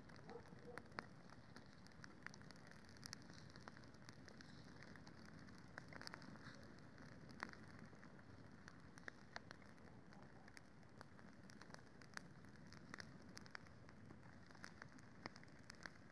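Campfire crackling faintly: scattered sharp pops and snaps, several a second, over a steady low hiss.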